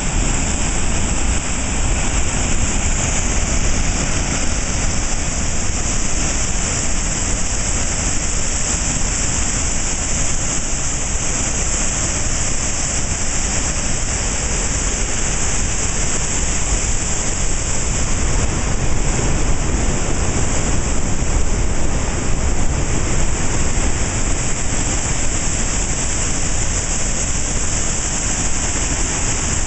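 Snake Indian Falls, a large waterfall, pouring over a rock ledge into a gorge: a loud, steady rush of falling water without a break.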